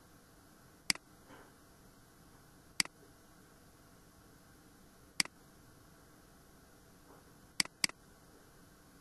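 Computer mouse button clicking: five short, sharp clicks a second or two apart, the last two in quick succession near the end, over a faint steady hiss.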